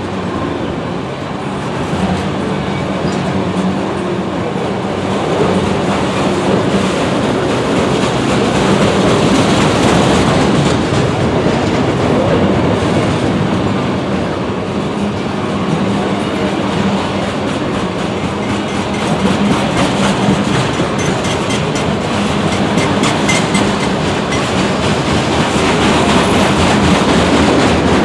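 Autorack freight cars rolling past on the rails. Steady wheel-and-rail noise, with repeated clicks as the wheels run over the rail joints.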